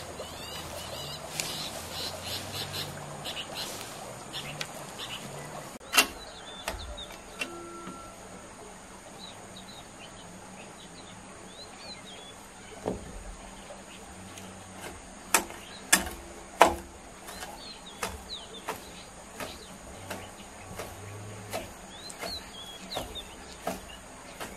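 A hoe striking the ground in a few sharp knocks, three of them close together about two-thirds of the way through. Birds chirp throughout, with a steady high insect drone behind.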